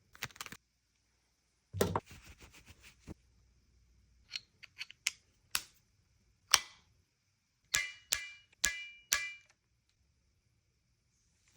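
Handling of a pistol and its gear: a series of sharp clicks and snaps, some in quick rattling runs, with two pairs of clicks near the end carrying a brief metallic ring.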